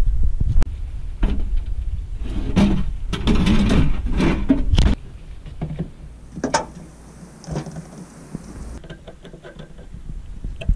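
A loud low rumble for about the first five seconds, then quieter scattered clicks and taps of a fuel hose and metal quick-connector being fitted to a plastic outboard fuel tank, with a screwdriver working a hose clamp.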